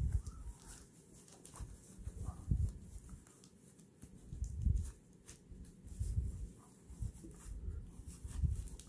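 Fabric rustling and brushing as a lined cloth purse is worked right side out by hand, with about five soft low thuds spread through it as the bag and hands bump the table.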